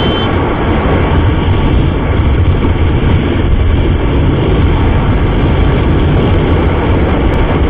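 Wind rushing over the camera of a motorcycle riding at road speed, a steady low rumble with the bike's engine running underneath.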